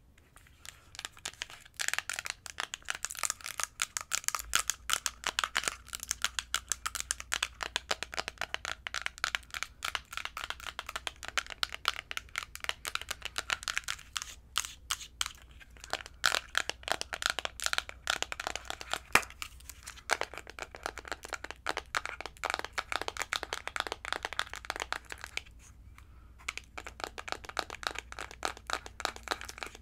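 Long fingernails tapping rapidly on a plastic eyeshadow palette, a dense run of quick clicks broken by two short pauses, about halfway through and near the end.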